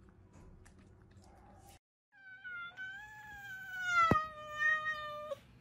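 Domestic cat giving a long drawn-out meow that follows a short first note, its pitch slowly falling, with one sharp click partway through.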